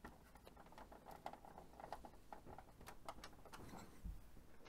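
Faint light clicks and taps of a screwdriver and screws being handled against the printer's plastic case, with a soft thump about four seconds in.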